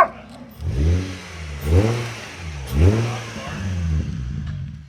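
Nissan 350Z's V6 blipped three times, about a second apart, through a Z1 Motorsports Touring cat-back exhaust, each rev rising and dropping back before the engine settles to idle. The exhaust note is deep and not too high-pitched.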